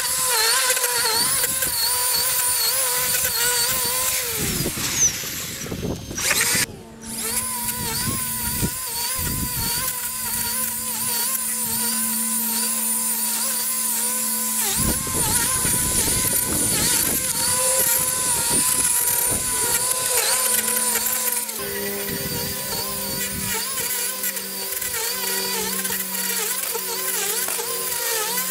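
Battery-powered electric lawn equipment running: a steady motor whine that cuts out briefly about six and a half seconds in, with its pitch pattern shifting about three quarters of the way through.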